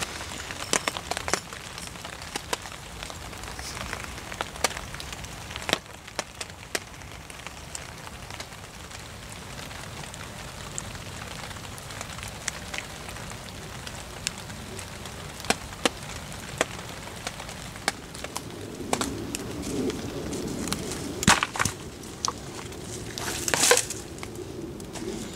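Wood being worked for a fire: irregular small cracks and snaps throughout, a stretch of rustling, and two louder sharp knocks near the end.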